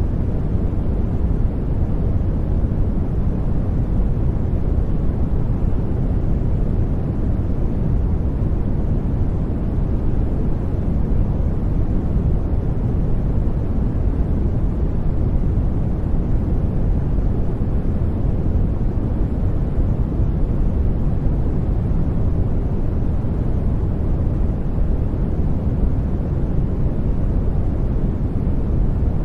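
Steady sleep-aid noise, which the uploader calls soft white noise: an even, deep rushing hiss, heavier in the low end, that does not change.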